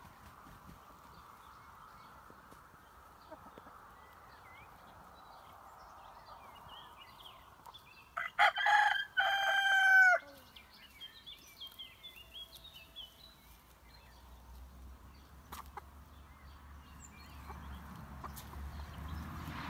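A rooster crows once, about eight seconds in: one cock-a-doodle-doo of about two seconds.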